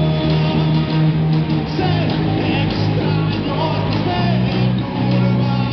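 Live rock band playing an instrumental passage between vocal lines: electric guitars over bass and a drum kit.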